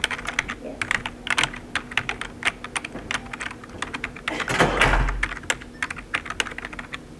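Typing on a computer keyboard: irregular quick key clicks, with one brief louder rustle a little after halfway.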